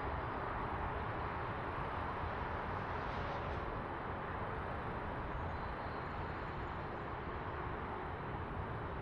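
Steady outdoor street background noise, a continuous even hiss of passing traffic.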